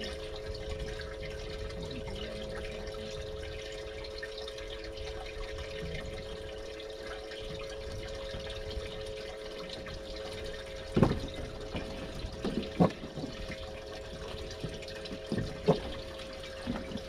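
Boat livewell pump running with a steady two-tone hum and water circulating. From about eleven seconds in, a few sharp knocks break in.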